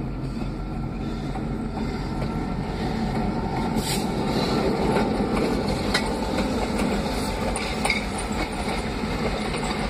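Passenger train passing close by: the diesel locomotive goes past and its coaches roll by with a steady rumble and occasional clicks of wheels over the rail joints.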